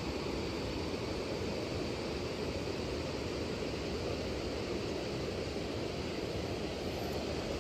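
Steady rushing wind noise on the microphone, with an uneven low rumble throughout.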